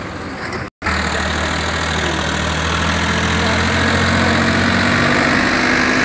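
Powertrac Euro 50 tractor's diesel engine running steadily close by under the load of a mud-filled trolley. It comes in right after an abrupt cut in the sound just under a second in.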